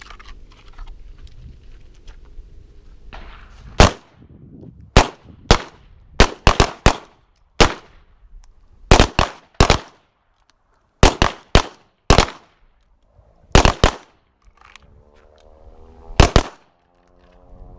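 Several centerfire pistols firing about twenty shots, starting about four seconds in. The shots come singly, in quick pairs and in tight clusters, with irregular pauses between, as each shooter fires a five-shot string.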